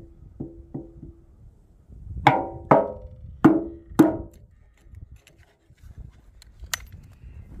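Hatchet striking a short wooden board held upright on a chopping block, splitting it: two light taps, then four hard blows between about two and four seconds in, each a hollow wooden knock with a short ring, and a single sharp crack near the end.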